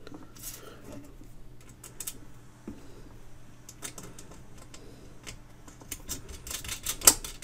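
Light clicks and taps of small metal hardware (a wire lug, washer and nut) being handled and fitted by hand on a steel turntable deck plate, with a cluster of louder clicks near the end.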